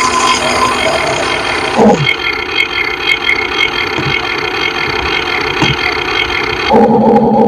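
RC excavator's motors whining steadily as it works, with a brief change in pitch about two seconds in and a louder stretch near the end.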